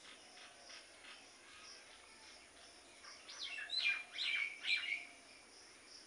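Parakeet giving a quick run of about four short, harsh calls, loud and close, starting about three seconds in, over faint high chirping in the background.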